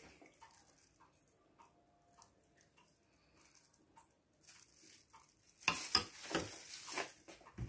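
A spoon clattering and scraping in a ceramic bowl of yogurt, in short bursts starting about two-thirds in. Before that it is quiet apart from faint, regular ticks about every half second.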